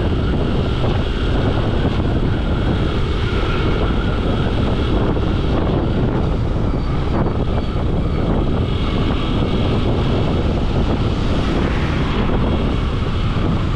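Steady road rumble and wind noise of a vehicle in motion.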